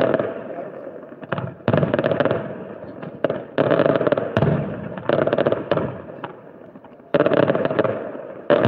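Aerial fireworks bursting in a rapid series, each sudden bang followed by crackling that fades away, with a new burst every one to two seconds.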